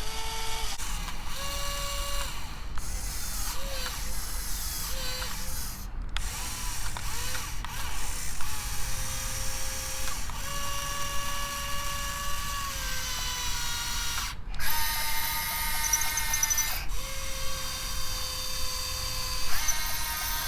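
Top Race metal RC excavator working, with its built-in sound effects switched on. Its electric motors whine in runs of one to three seconds, stopping and changing pitch again and again as the boom, bucket and tracks are worked.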